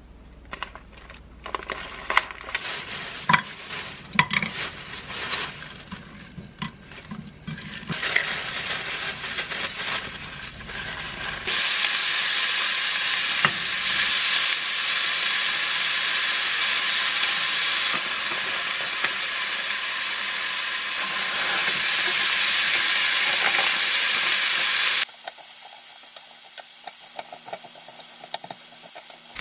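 Pieces of pork neck sizzling loudly as they fry in a frying pan. The sizzle follows several seconds of scattered clicks and knocks from handling. Near the end it thins to a higher hiss while fried rice and meat are stirred with a wooden spatula.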